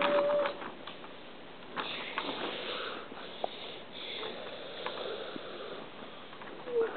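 A held tone that cuts off about half a second in. After it come faint clicks and rattles of wooden toy train cars being pushed along wooden track, with two short sniffs.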